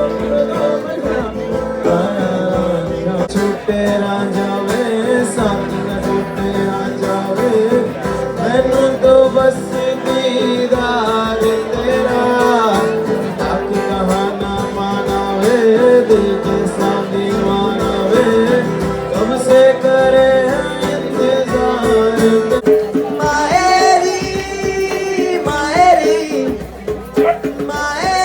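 Live acoustic guitar music with singing. A brighter, higher voice comes in near the end.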